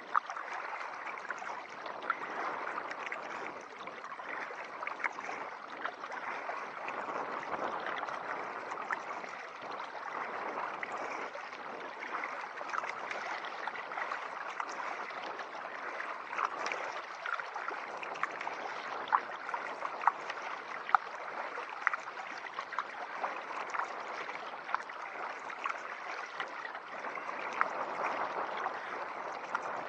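Tidal river water lapping, gurgling and splashing against a kayak, with irregular sharp splashes and clicks.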